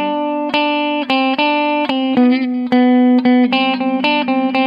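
Clean electric guitar, a Gibson Les Paul 100, picking a single-note melody one note after another over a steady lower note. The line is the same melody played a third higher, starting on B in G major, as a parallel harmony part.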